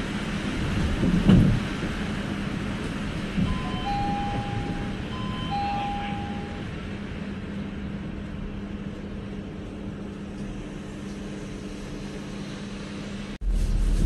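City bus running, heard from inside the cabin: a steady engine hum with road noise, a loud thump about a second in, and a few short two-tone electronic beeps around the middle. The sound jumps abruptly louder near the end.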